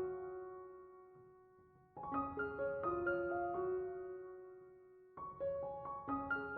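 Background piano music: short phrases of single notes, each phrase ending on a held note that fades out before the next phrase begins, about two seconds in and again about five seconds in.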